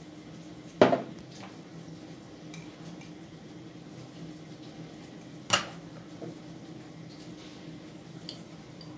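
A metal spoon clinks sharply twice against dishes, once about a second in and again about five and a half seconds in, with a few fainter ticks between, as it works in a ceramic mixing bowl and a glass spice jar.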